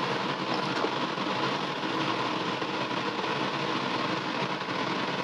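Steady roar of a restaurant kitchen's gas wok range, with the burner and its extraction running continuously under a covered wok that is stewing.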